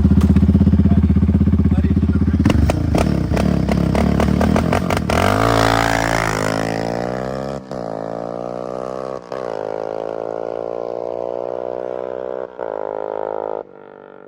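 Yamaha Raptor 700 ATV's single-cylinder four-stroke engine running through a loud aftermarket exhaust. A deep, loud note is broken by a series of sharp cracks a few seconds in; then the pitch climbs as it accelerates and holds a steady higher note, cutting out briefly three times before stopping near the end.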